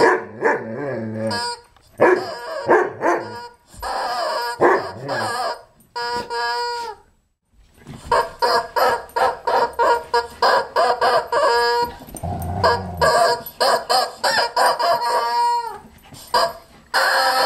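Rubber chicken squeaky toy squawking again and again as a dog bites and squeezes it: several drawn-out squawks, then after a short pause about seven seconds in, a quick string of short ones, about three a second.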